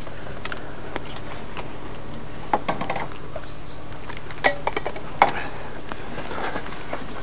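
A few short clatters and clicks of small hard objects being handled, in three quick groups, the loudest about five seconds in, over a steady low hum.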